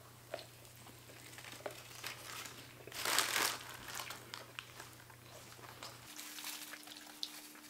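Paper burrito wrappers crinkling as the burritos are handled, with faint chewing and a few small clicks. The loudest rustle comes about three seconds in.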